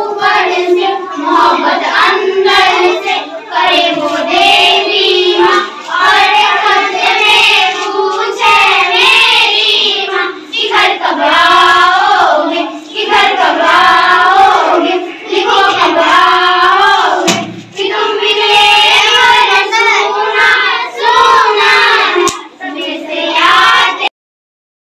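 A group of children singing together in chorus. The sound cuts off abruptly about a second before the end.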